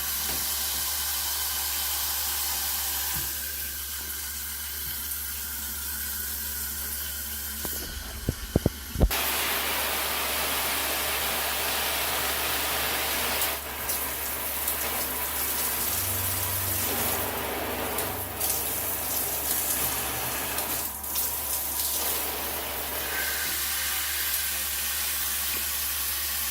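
Cobbe 8-function handheld shower head spraying water, a steady hiss that changes character several times as it is switched through its spray settings, ending on a low-pressure setting. A few sharp knocks about eight seconds in.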